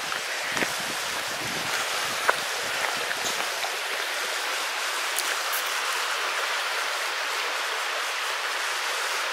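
Shallow woodland stream running over stones, a steady rushing babble of water.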